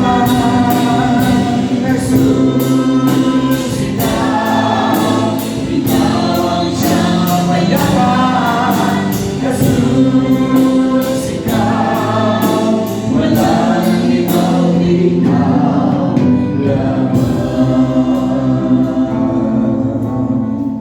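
Gospel choir singing over music with a steady beat. The beat's high ticks drop out about three-quarters of the way through, leaving the singing and backing.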